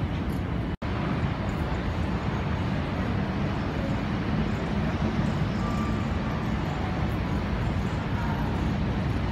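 Steady low rumble of airport concourse background noise, with the sound dropping out for an instant less than a second in.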